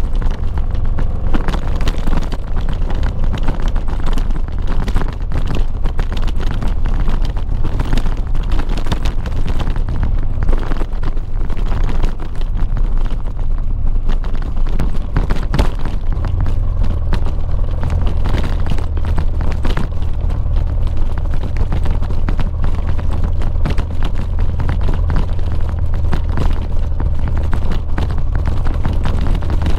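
Honda XL700V Transalp's V-twin engine running under way on a gravel road, with heavy wind buffeting on the microphone and many short knocks from the rough surface. The engine note grows stronger and steadier about halfway through.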